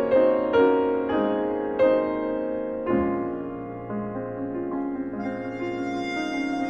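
Slow piano music: notes struck one after another for the first three seconds, then softer held notes.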